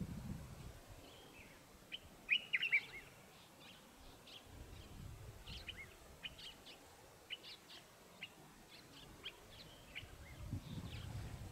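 Birds chirping: many short, separate chirps, loudest in a quick cluster a little over two seconds in. A low rumble comes and goes underneath.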